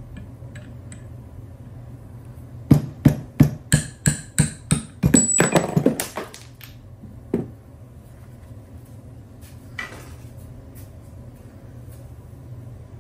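Rubber mallet striking a 3/8-inch socket held against a steel bushing sleeve in an upper control arm: about eight sharp knocks a little under a half second apart, then a quick run of faster knocks and metallic rattling, driving the sleeve out of the bushing. One more single knock follows.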